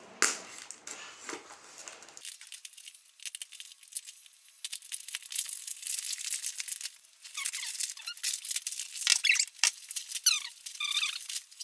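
Tightly wrapped parcel packaging being torn and pulled open by hand: crackling, scratching plastic and tape with squeaky rubbing, busiest in the second half.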